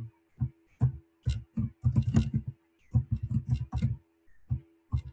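Computer keyboard being typed on: quick irregular runs of key clicks with short pauses between them.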